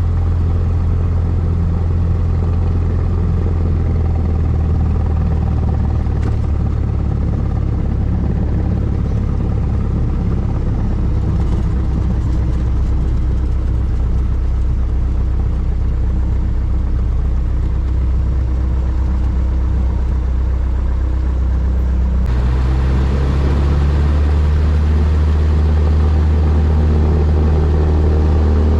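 Cessna 172 light aircraft's piston engine and propeller running with a steady low drone. About three-quarters of the way through, the sound grows louder and brighter as power comes up.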